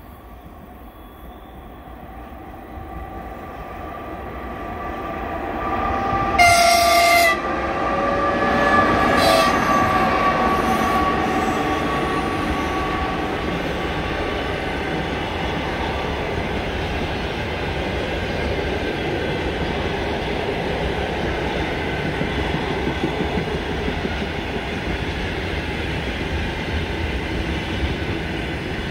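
An EP2K electric locomotive hauling a long passenger train, growing louder as it approaches and passes while accelerating on its rheostat (starting-resistor) positions. It gives a short, loud horn blast about six seconds in. After that the passenger coaches roll past with a steady rumble and clickety-clack of the wheels.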